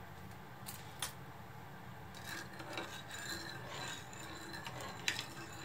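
Metal spoon stirring sugar into a shallow layer of seasoning liquid in a small rectangular nonstick pan, scraping over the pan's bottom. Two sharp clicks come about a second in, and another near the end.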